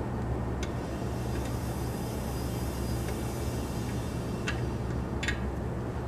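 Belt-driven compressor and motor of a 1931 Frigidaire condensing unit running with a steady hum, with a few sharp ticks and a faint hiss for several seconds in the middle.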